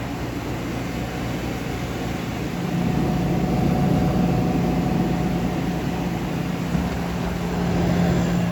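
1973 Carrier Weathermate window air conditioner running: steady fan and air noise with a low, steady hum that grows louder about three seconds in.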